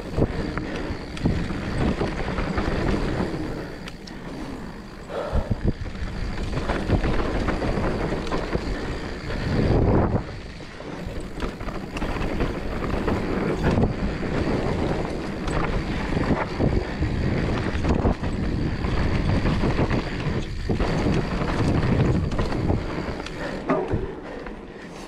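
Mountain bike riding fast down a dirt flow trail: knobby tyres rolling over packed dirt and leaves, the bike knocking and rattling over bumps, with wind rushing on the microphone and a louder surge about ten seconds in.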